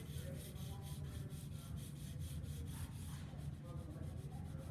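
Graphite pencil shading on paper: quick back-and-forth strokes scratching at a steady rhythm, several a second.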